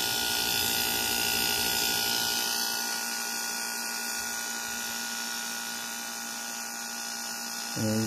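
2002 Whirlpool 5000 BTU window air conditioner running on cool: compressor and fan motor making a steady hum, a little loud and a little noisy from the compressor. The hum eases slightly about three seconds in.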